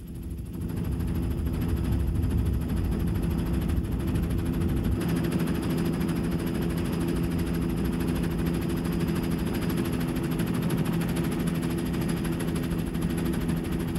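Helicopter engine and rotor drone heard from on board: a steady hum of several held low tones over a rumble, fading in over the first second and then holding level.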